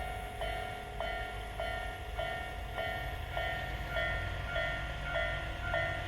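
Japanese railway level crossing warning alarm ringing: a ringing ding that repeats evenly about every 0.6 s. A low rumble under it grows stronger about halfway in.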